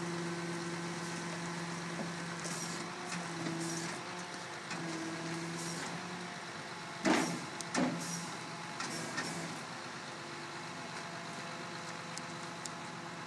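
A vehicle engine idling with a steady low hum, and two sharp knocks or clatters about seven and eight seconds in.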